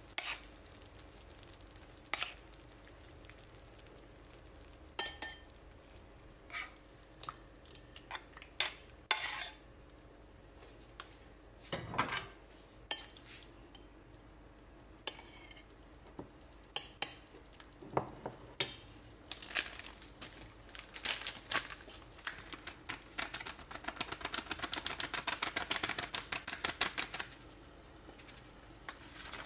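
A metal utensil clinking and knocking against a frying pan and dishes, scattered at first. About two-thirds in it turns into a quick run of scraping clicks as food is stirred in the pan.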